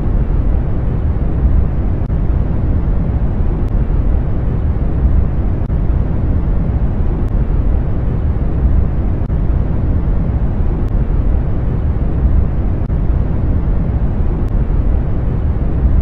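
A steady, deep rumbling noise, a 'space sound' track presented as the sound of a cratered moon or dwarf planet, heaviest in the bass. A faint tick comes about every three and a half seconds.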